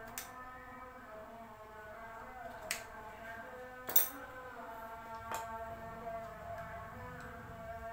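Background music, with a few sharp metal clinks from hand tools working on the motorcycle's front brake parts; the loudest clink comes about four seconds in.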